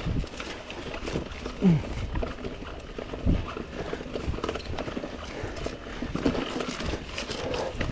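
Mountain bike descending a rough trail: irregular knocks and rattles as the tyres and frame hit rocks and bumps, with a short falling sound about two seconds in.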